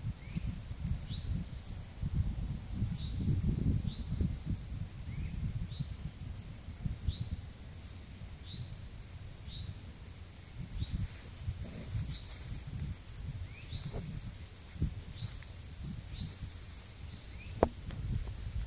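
Steady high-pitched insect chorus of crickets or katydids, with a bird repeating a short falling chirp about once a second. Irregular low rumbling runs underneath, and there is a single sharp click near the end.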